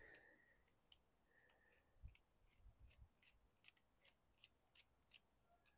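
Faint, scattered small metal clicks and ticks as a small screwdriver works the main jet loose from a small-engine carburetor, with a few soft low thuds about two to three seconds in.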